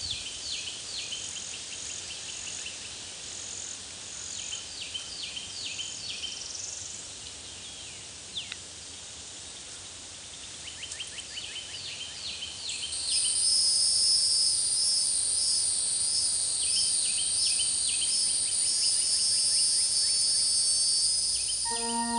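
Outdoor woodland ambience: birds giving short, repeated chirps, and from about halfway through a loud, steady, high-pitched buzzing of insects that pulses slightly.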